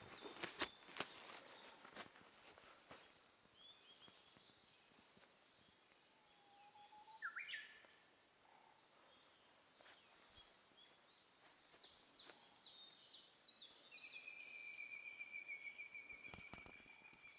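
Faint calls of several small wild birds in woodland: short chirps, a quick rising whistle about seven seconds in, a run of high notes, then one long even trill near the end. A few sharp clicks in the first second.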